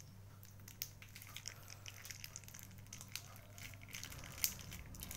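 Thick chili sauce poured onto blended chili paste in a wok: faint, scattered small wet clicks and crackles, with one sharper click near the end, over a steady low electrical hum.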